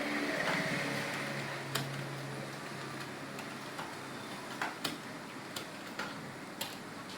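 Computer keyboard keys clicking in scattered, irregular strokes as someone types, over a low steady hum that fades out a couple of seconds in.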